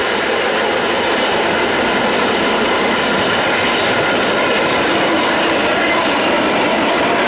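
A vintage New York subway train, its heritage cars running along an open-air track and passing close by: the steady noise of wheels on rails and running gear, with a faint steady whine coming up near the end.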